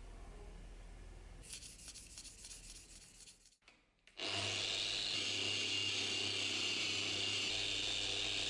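Angle grinder fitted with a wool polishing pad and clamped in a vise, running at a steady speed from about four seconds in, with a steady hum under a loud whirring hiss. Before it, faint scratchy rubbing.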